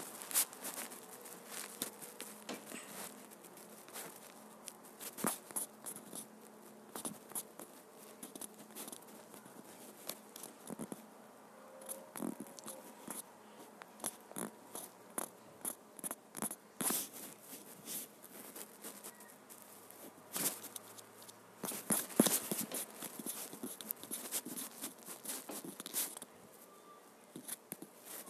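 Irregular light clicks and taps close to the microphone, from fingers on a smartphone's touchscreen and body as it is handled and scrolled.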